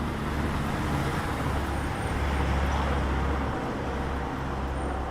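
Low mechanical rumble with a steady hum, like a motor running, over a constant hiss; it swells louder about halfway through and then eases back.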